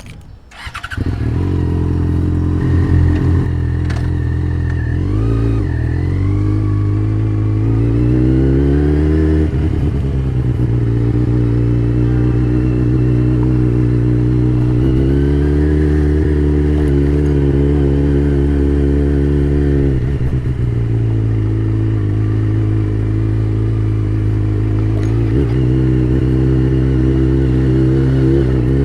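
Yamaha XJ6's 600cc inline-four engine running during a ride. It gets loud about a second in, then climbs and drops in pitch through acceleration and gear changes, with steady stretches in between.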